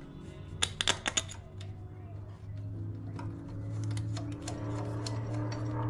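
Quick light clicks and taps of a billet aluminium valve cover being fitted by hand onto a small engine's cylinder head, bunched about a second in. A steady low background music bed rises under it.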